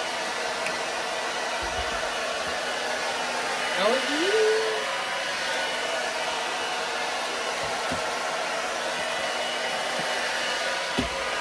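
Hand-held hair dryer blowing steadily. About four seconds in, a short rising tone rises over the noise and holds briefly, and a small click comes near the end.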